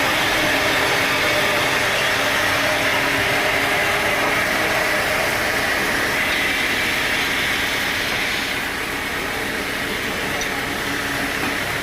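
Sawmill machinery running steadily: a motor hum under a loud hiss. The higher part of the hiss drops away about eight and a half seconds in.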